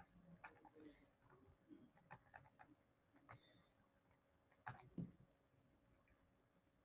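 Near silence, with faint scattered clicks and two louder clicks about five seconds in.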